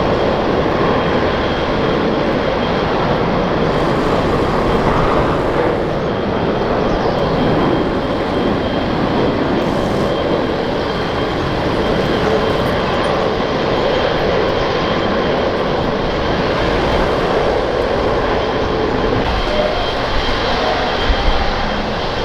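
Airliner's engines running loud and steady, with a faint high whine held on one pitch.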